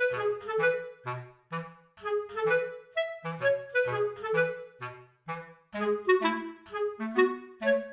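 Background music: a bouncy tune of short, separated notes over a bass line.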